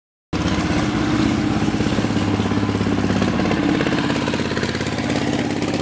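Engine of a small wooden river boat running steadily under way, a loud, even engine note that cuts in suddenly just after the start.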